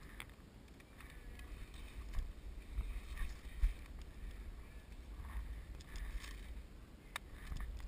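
Uneven low rumbling noise on the microphone, with a few faint sharp clicks, one clear one about seven seconds in.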